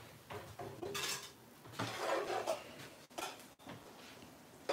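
Metal serving spoon scraping and clinking against a skillet and plates while potato hash is spooned out, in a few short clattering bouts, the longest about two seconds in.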